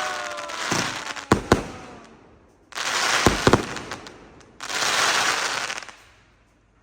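Fireworks going off: a fading whistle and sharp bangs in the first second and a half, then two loud crackling bursts about three and five seconds in, dying away near the end.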